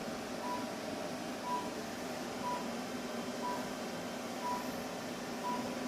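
A high-power therapy laser beeping: a short, mid-pitched beep once a second, the pulse it gives while it is emitting, over a steady low hum.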